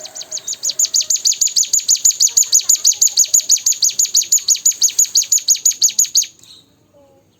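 Ciblek gunung (cigun) singing: a fast, evenly spaced series of high, sharp chirps, about six a second, that stops abruptly a second before the end.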